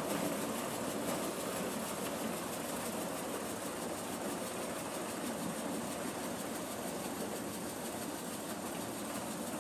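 Vardhman maize sheller running steadily, a constant mechanical drone and rattle as it threshes corn and delivers the shelled kernels from its chute.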